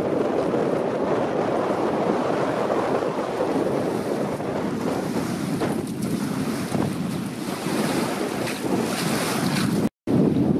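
Wind buffeting the microphone over small waves lapping and breaking on a pebble shore, with splashing in the shallows in the second half. The sound cuts out for a moment near the end.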